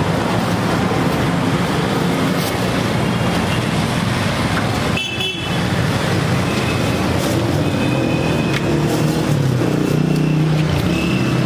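Busy street traffic: a steady, loud din of vehicle engines, with a brief high tone about five seconds in.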